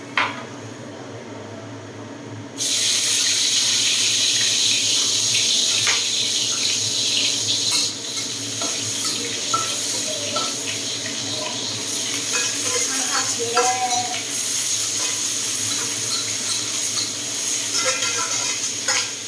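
Green vegetables stir-frying in a wok on a gas burner: a loud sizzle starts suddenly a few seconds in and holds steady, with the spatula scraping and clicking against the wok.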